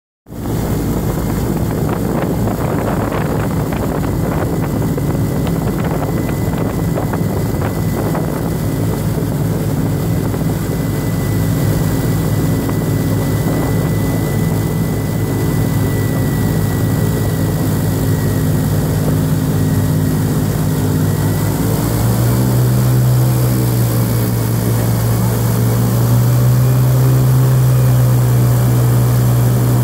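Airboat's engine and air propeller running loud and steady while under way. About two-thirds of the way in the revs climb and waver and the sound grows louder.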